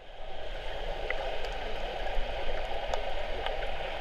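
Steady rushing, gurgling water of a wave pool, with a few faint splashes.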